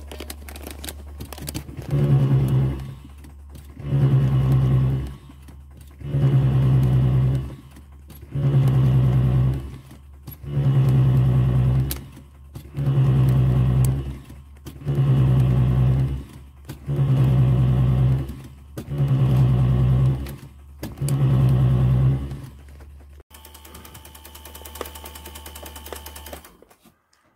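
Land Rover Discovery ABS hydraulic unit buzzing in regular pulses, switched on and off by a homemade ABS modulator: about ten bursts of a bit over a second each, one every two seconds, over a fainter steady hum. The unit is being cycled to purge air and old fluid from the ABS valve block while the brakes are bled.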